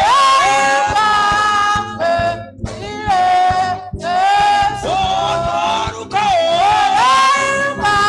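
Worship singing with music: one strong voice holds long notes and slides between them, with brief breaks for breath.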